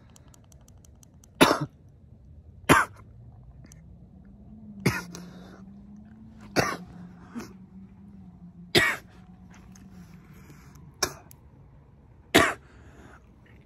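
A man coughing repeatedly, about eight separate harsh coughs a second or two apart, brought on by a puff from a vape pod that he says makes him cough a lot.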